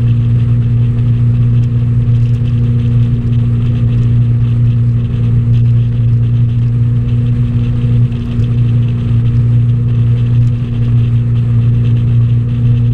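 Ski boat's inboard engine running steadily at towing speed: a loud, even drone over a constant rush of noise.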